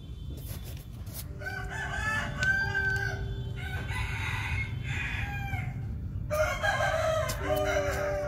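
Chickens clucking and a rooster crowing several times, with calls rising and falling in pitch, over a steady low background hum. Near the end, soft music with long held notes comes in.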